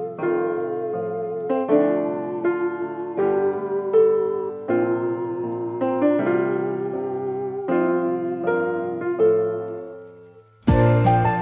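Background music: a keyboard melody over piano chords that fades out about ten seconds in. A different, louder track with a beat starts just before the end.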